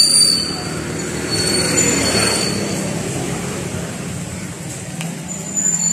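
Motor scooter passing close by in a narrow street, loudest at the start. High, steady squealing tones come and go over the traffic sound: at the start, around two seconds in, and again near the end.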